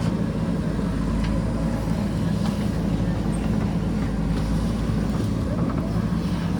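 JCB backhoe loader's diesel engine running steadily under work, with a few faint knocks.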